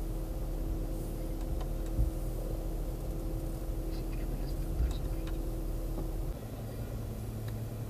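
Steady low hum inside a Fiat Tipo hatchback's cabin, with a few soft clicks from the radio's buttons being pressed. The hum changes note about six seconds in.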